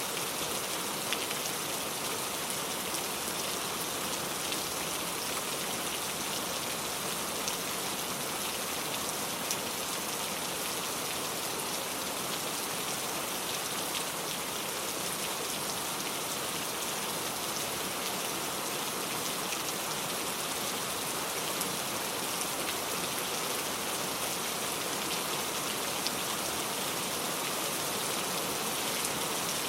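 Heavy rain falling steadily, a dense even hiss of drops on a surface with scattered sharper drop ticks.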